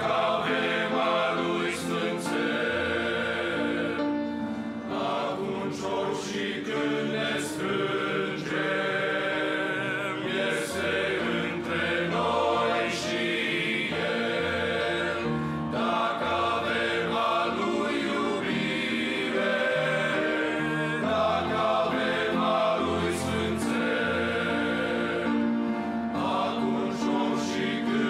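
Men's choir singing a Romanian hymn in several-part harmony, holding chords that shift every second or two, with sharp sibilant consonants cutting through now and then.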